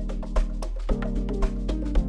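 Amapiano beat playing back. A kick drum lands a little under twice a second under sustained bass and chords, with busy percussion on top.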